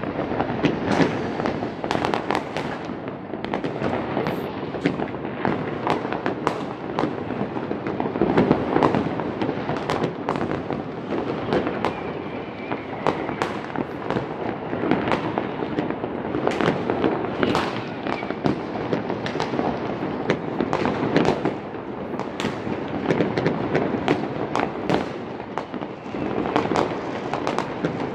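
New Year's fireworks and firecrackers going off together: a dense, continuous crackle of overlapping bangs with no pause, some sharper reports standing out.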